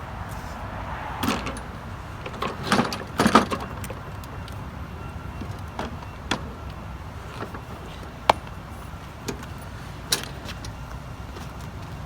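Hands working on a walk-behind lawn mower: scattered clicks, knocks and rattles, busiest in the first few seconds, with single sharp clicks later, over a steady low rumble.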